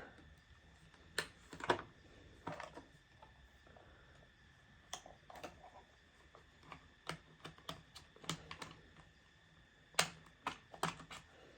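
Irregular plastic clicks and snaps as an Xbox controller's shell is pried apart with plastic pry tools, the clips letting go; about fifteen clicks, the loudest about a second and a half in and again near the end.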